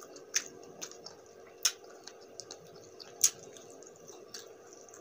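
Close-miked wet mouth clicks and smacks of chewing spicy buffalo wings. The sharp clicks come irregularly, a few a second or so apart, the loudest about three seconds in.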